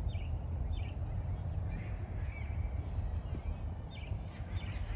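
Steady low outdoor rumble with a few short bird chirps scattered through it.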